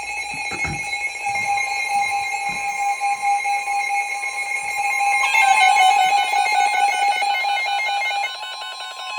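Emergency Alert System warning alarm on NOAA Weather Radio, announcing a severe thunderstorm warning. It is a loud, steady, shrill tone that changes about five seconds in, when a second tone joins and the sound becomes a rapid pulsing beep.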